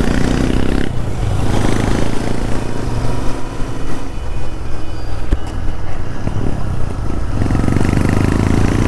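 Royal Enfield Interceptor 650's parallel-twin engine running under way on a gravel trail, its note swelling and easing twice. There is a single sharp knock about five seconds in.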